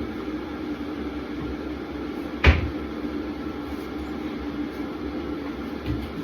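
A sharp knock about two and a half seconds in and a softer one near the end, from dishes and cupboard doors as washed crockery is put away from the drainer. Under them is the steady low rumble and hum of an electric kettle heating up.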